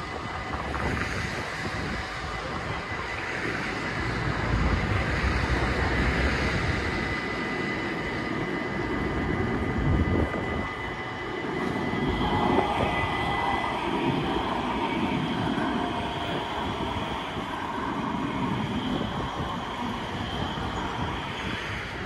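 Rotterdam metro train crossing a level crossing: rumble of the wheels on the rails, with the whine of its electric traction motors in the second half. A steady high warning tone from the crossing sounds through the first half and stops a little past the middle.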